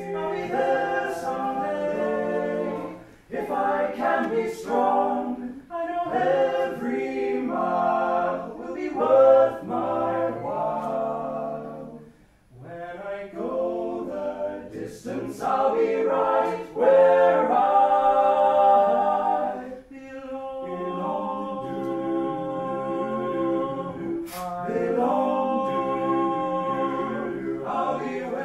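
Unaccompanied singing in long sung phrases, with a short break about twelve seconds in and long held notes in the later part.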